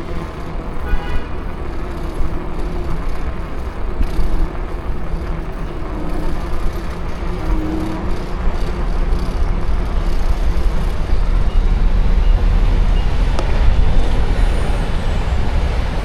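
City road traffic: a steady low rumble of vehicles running and passing, growing louder in the second half. A faint high whine falls in pitch near the end.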